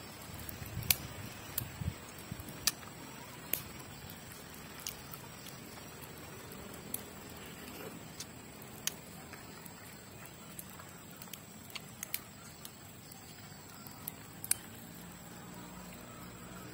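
Cooked mud crab shell being cracked and picked apart by hand while eating: sharp, irregular clicks and cracks, with a few dull low knocks in the first couple of seconds, over a steady hiss.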